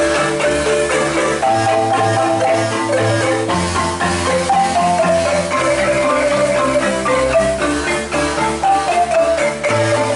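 An ensemble of wooden marimbas struck with mallets, playing fast repeated patterns with a melody line on top and low bass-marimba notes that change every second or two.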